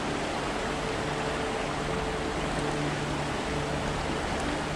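Steady rush of a shallow stream flowing over pebbles.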